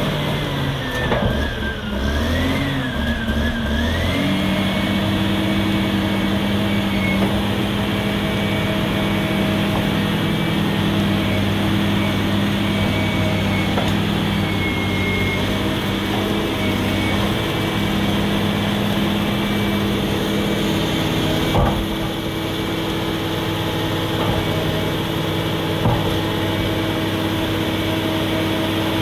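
Caterpillar D6R crawler dozer's diesel engine running as the machine drives and turns on its steel tracks, with a steady high whine over the engine note. The pitch wavers in the first few seconds, then holds steady, and there is a single knock about two-thirds of the way through.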